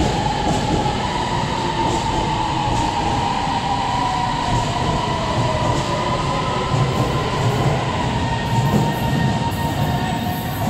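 Beijing Subway BDK03 train pulling away, its IGBT VVVF traction inverter whining over the rumble of wheels on rail as it accelerates. One inverter tone slides down in pitch partway through while another holds steady.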